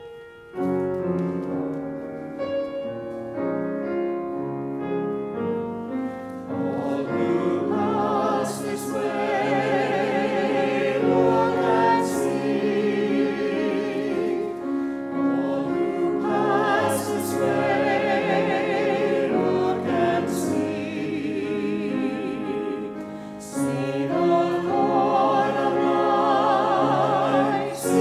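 Church choir music. A piano plays alone for the first several seconds. Then a small choir comes in at about seven seconds and sings with vibrato over the piano, with a short break between phrases a few seconds before the end.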